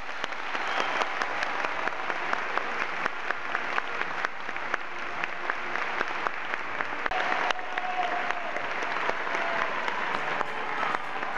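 Theatre audience applauding, a dense steady clatter of many hands, with one pair of hands clapping louder close by at about two to three claps a second.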